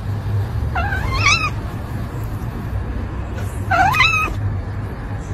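Domestic cat meowing twice while being scratched on the head, once about a second in and again near four seconds, each meow short and rising then falling in pitch. A steady low hum runs underneath.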